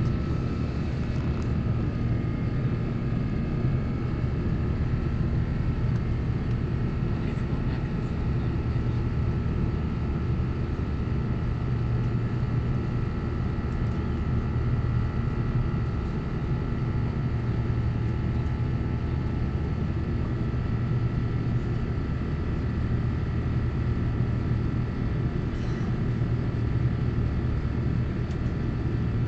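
Cabin noise inside an Airbus A350-1000 climbing after takeoff: the steady low drone of its Rolls-Royce Trent XWB engines and the airflow, with a thin, steady high whine from the engine fans on top.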